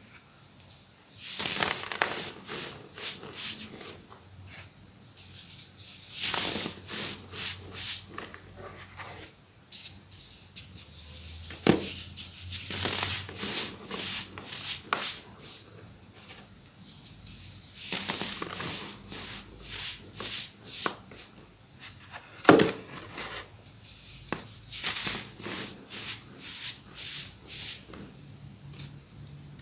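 Clumps of baking soda being crushed and crumbled, with crisp crunching that comes in clusters every few seconds. Two sharp snaps stand out, about a third of the way in and about three quarters of the way in.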